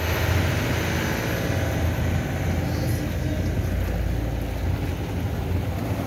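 Boat engine running steadily, with water rushing past the hull as the seaweed-collecting boat moves through the water.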